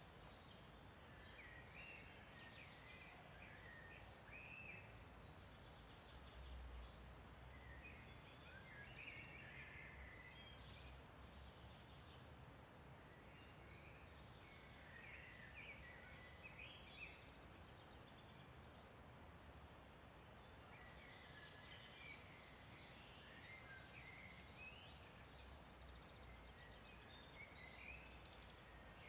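Faint woodland birdsong: several small birds singing and calling in short chirps and quick trills over a quiet steady hiss.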